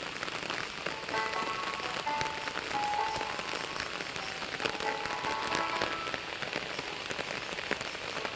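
Rain pattering, a dense spread of small drop ticks, with a background melody of held notes coming and going over it.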